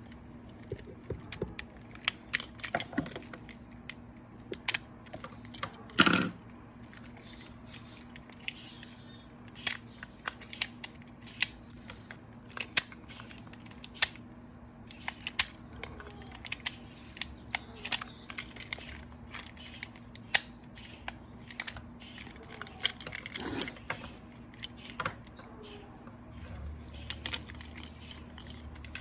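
Irregular clicks and taps of small metal parts and hand tools as a car's steering lock assembly is worked on by hand, with one louder knock about six seconds in.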